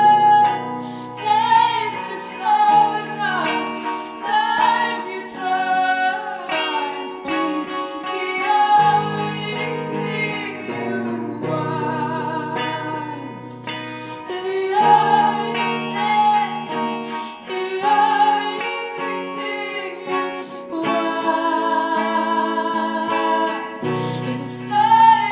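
A woman singing a song in long, wavering held notes over instrumental backing.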